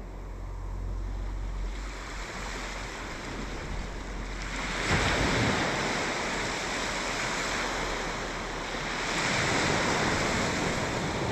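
Sea surf washing onto the beach, swelling up suddenly about halfway through and again near the end, with wind rumbling on the microphone.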